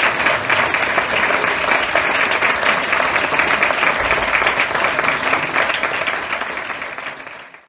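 Audience applause: many people clapping in a dense steady patter that fades away near the end.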